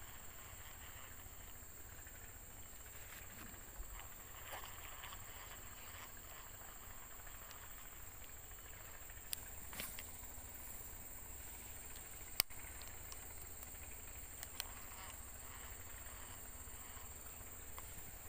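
Faint swamp ambience: a steady high-pitched insect drone, with a few scattered faint clicks and one sharper click about twelve seconds in.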